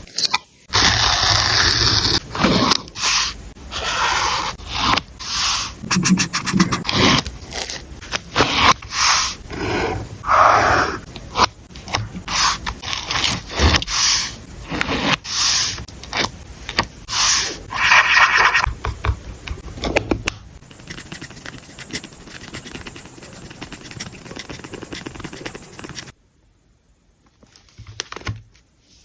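Close-up sounds of paper and stationery being handled for a journal collage: a dense run of irregular scraping and rustling strokes that grows quieter about twenty seconds in and stops a few seconds before the end.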